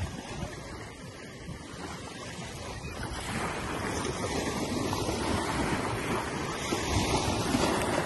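Small ocean waves breaking and washing up a sandy beach, the surf swelling louder from about three seconds in as a wave rolls in and breaks, with wind rumbling on the microphone.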